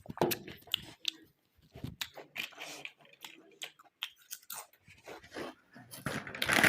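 Crunchy packaged chips being bitten and chewed close to the microphone, in irregular crisp crunches. Near the end a louder, continuous rustling begins.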